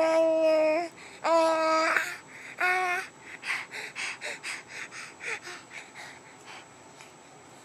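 Baby cooing in three held, steady-pitched vocal sounds, then a run of short breathy huffs, about three a second, that fade away. It is the voice of an infant recovering from bilateral vocal cord paralysis.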